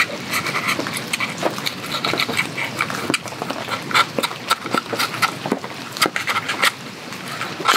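Knife blade scraping and clicking against a scallop shell as the adductor muscle is cut to pry it open: a run of short scratchy squeaks and clicks over a steady hiss.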